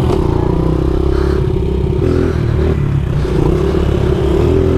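A 70cc pit bike's small single-cylinder engine running at a steady cruise, heard close from the rider's seat, with a brief dip in revs about two seconds in.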